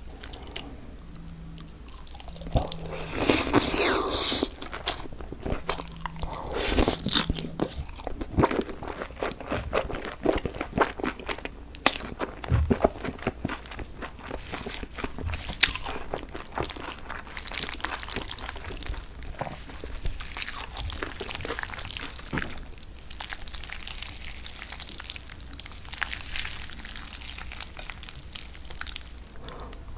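Close-up eating sounds: loud crunching bites about three and seven seconds in, followed by steady chewing with many small wet clicks and smacks.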